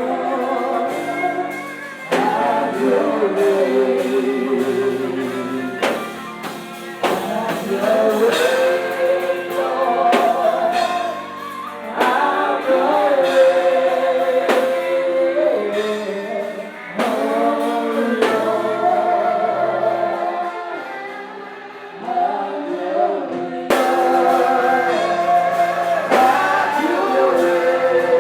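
Congregational gospel worship song: voices singing slow sustained phrases together over instrumental accompaniment.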